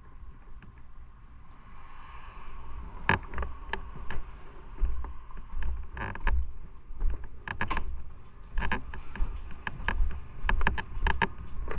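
Footsteps on a wooden deck and then a shop floor, with irregular sharp clicks and knocks, some in quick clusters, starting about three seconds in over a low rumble.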